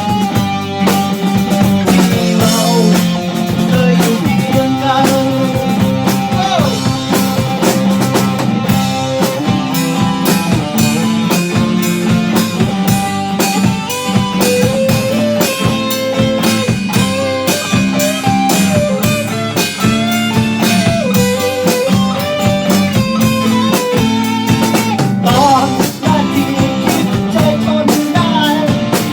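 Rock band playing an instrumental section: an electric guitar lead with bent, sliding notes over drums and bass.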